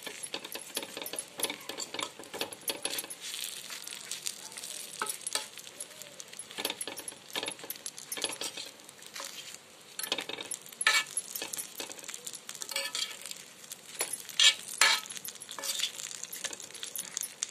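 Stuffed roti pieces sizzling in mustard oil on an iron tawa, while a metal spoon scrapes and clicks against the griddle spreading oil over them. A few sharper clicks come in the second half as the pieces are handled.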